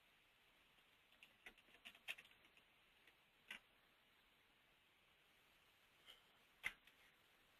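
Faint computer keyboard typing: a scatter of soft key clicks over the first few seconds, then a single sharper click near the end.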